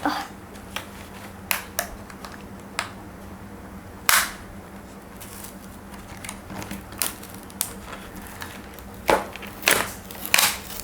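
Cardboard toy box being opened by hand: scattered sharp clicks and snaps from the flaps and packaging, with a louder snap about four seconds in and a quick run of snaps near the end.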